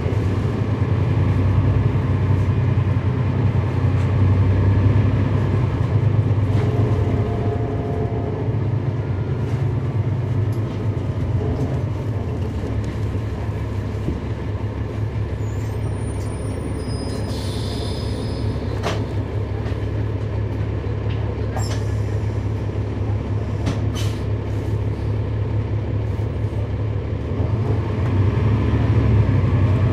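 Interior sound of a 2011 NABI 416.15 transit bus with a Cummins ISL9 inline-six diesel, heard from on board as the bus runs in service. The engine's low drone is louder in the first few seconds and again near the end, and eases off in between. A few sharp clicks and brief high hisses come in the middle.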